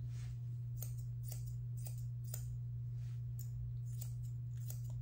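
Grooming shears snipping through a toy poodle puppy's curly coat around its head and ears: a string of short, crisp snips at an irregular pace, about two a second, over a steady low hum.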